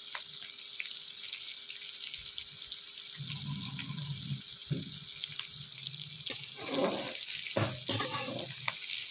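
Sliced onions frying in ghee in a kadhai, a steady high sizzle; they are still pale, early in frying toward golden. In the second half a metal slotted spoon stirs them, scraping and knocking against the pan a few times.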